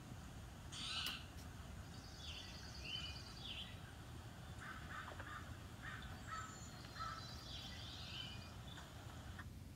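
Several wild birds calling: a mix of short high chirps and trills and some lower calls, over a steady low outdoor background noise.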